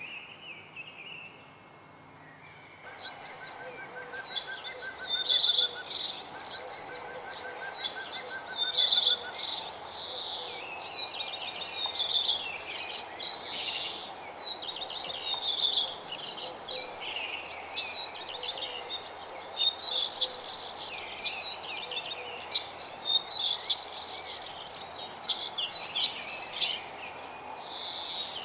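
A songbird singing, repeating short high phrases of quick notes every two to three seconds, over a steady background hiss.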